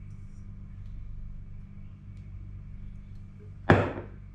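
A steady low hum in the background, then a sharp clack near the end as a sauce bottle is set down on a stainless-steel counter.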